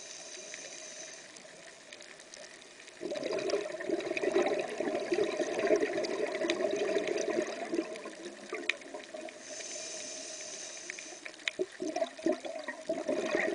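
Scuba diver breathing through a regulator underwater: a short hiss of inhaling at the start, then a few seconds of exhaled bubbles, another inhaling hiss about ten seconds in, and bubbles starting again near the end.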